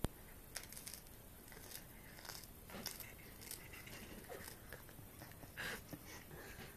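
Cat biting and chewing on a piece of pizza held in a person's fingers: faint, irregular crunching and little clicks, with a sharp click right at the start.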